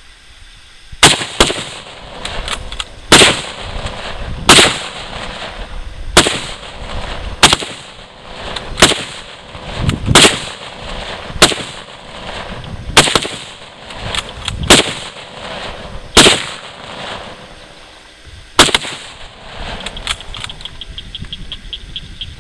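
Single gunshots fired at a slow, steady pace, about one every second and a half and some fifteen in all, each loud crack trailed by a short echo. The shots stop a few seconds before the end.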